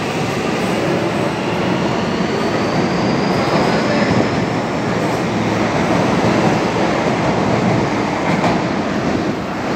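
Mexico City Metro train pulling out of the station alongside the platform: a loud, steady running rumble, with a faint rising motor whine about three seconds in as it picks up speed.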